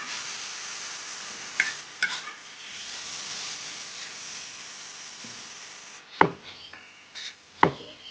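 Kitchen cooking sounds: a steady hiss with a few light clicks, then two sharp knocks of a utensil on a pot about a second and a half apart near the end.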